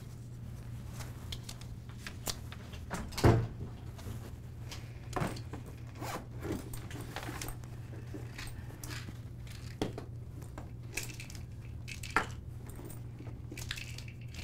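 A leather handbag is set down on a table with a thump, then rummaged through: zipper, rustling and small clicks and knocks as items are taken out and put on the table. A steady low hum runs underneath.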